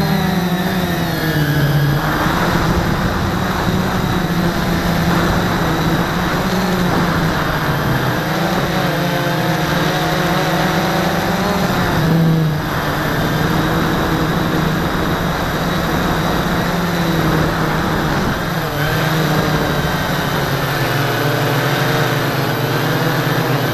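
A CX-20 Cheerson quadcopter's brushless motors and propellers whine loudly and steadily, recorded close up from a camera mounted on the drone. The pitch wavers and steps up and down as the motor speed changes, dipping for a while near the end.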